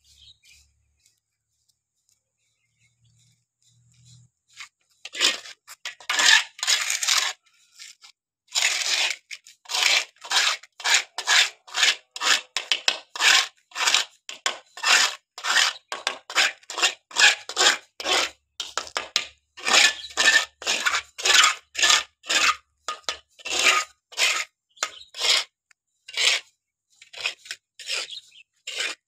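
Small steel trowel scraping wet cement grout against a metal mixing pan in quick repeated strokes, about two a second. It begins about five seconds in and pauses briefly near eight seconds.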